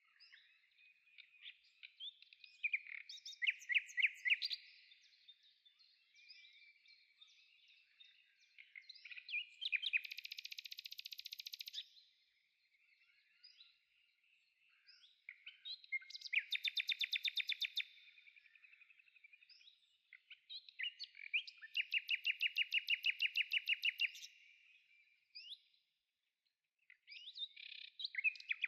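Small songbirds singing: scattered chirps broken by several fast trills of rapidly repeated notes, each trill lasting one to three seconds.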